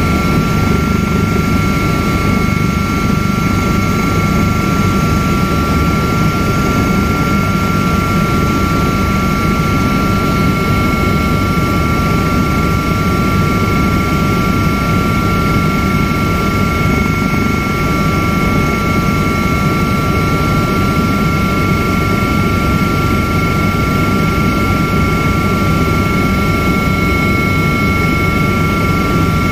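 Helicopter cabin noise in flight: a steady, loud rumble with several constant high-pitched whining tones over it.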